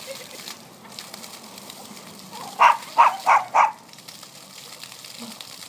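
Puppy barking four quick times in a row, about halfway through, over the steady hiss of a lawn sprinkler's spray.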